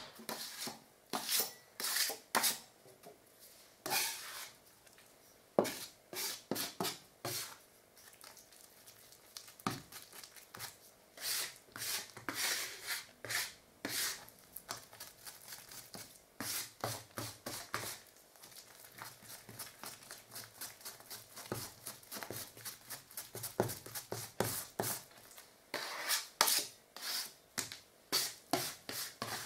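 Metal filling knife scraping and tapping on a mixing board, working powder filler and water into a paste: a long run of short irregular scrapes, louder in the first few seconds and again near the end.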